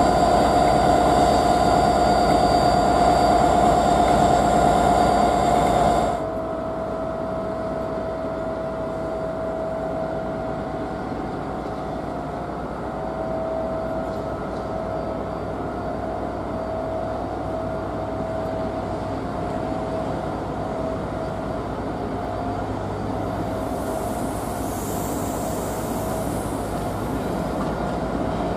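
Diesel locomotives at a station platform: a loud, steady engine note with a high whine. About six seconds in it drops abruptly to a quieter, steady diesel drone as a Class 47 and Class 57 top-and-tailed passenger train pulls away.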